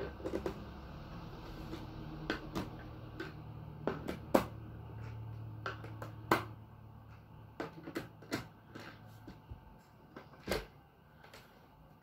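Irregular sharp clicks and plastic knocks from a screwdriver working the bottom-panel screws of a Qanba Obsidian arcade stick's plastic case, and from the case being turned and handled, with a duller thud about ten and a half seconds in.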